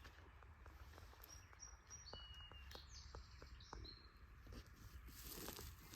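Faint songbird calls: a string of short, high whistled notes, some sliding in pitch, over a quiet background with a few faint ticks.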